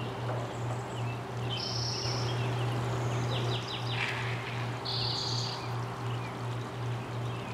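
Small birds singing and chirping: short high calls a few times and a quick run of four notes about three seconds in, over a steady low hum.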